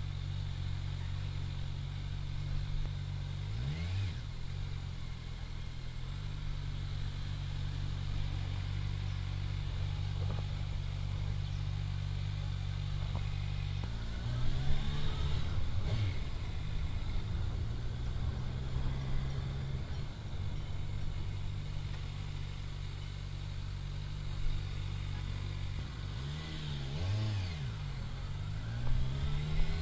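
Motorcycle engine idling steadily, then revving and pulling away about halfway through, its pitch rising and falling through gear changes. Another rise and fall in pitch comes near the end.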